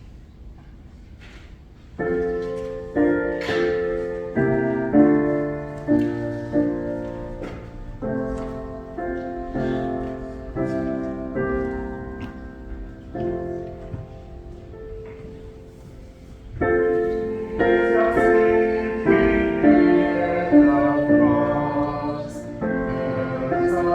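Piano playing slow chords, each struck and then dying away, starting about two seconds in and growing fuller and louder about two-thirds of the way through.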